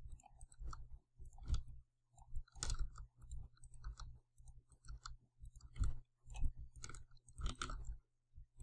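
Irregular clicks and taps of a computer mouse and keyboard, over a steady low hum.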